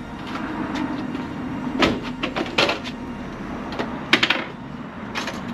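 Knocks and clunks of parts of a motorcycle being handled, after a low steady hum that stops about two seconds in.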